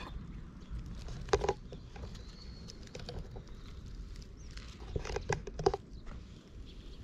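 Close-up rustling and scratching of a pet brush drawn through a cat's fur on dry grass, with short sharp rustles about a second in and again near the end, over a steady low rumble.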